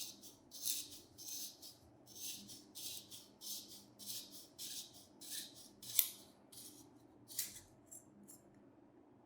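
Rhythmic abrasive rubbing strokes by hand, about one and a half a second, each a short scratchy hiss. The sharpest stroke comes about six seconds in, and a few fainter ones trail off near the end.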